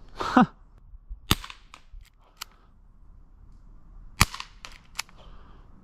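Airsoft revolver firing two shots about three seconds apart, each a sharp crack, with fainter clicks between them.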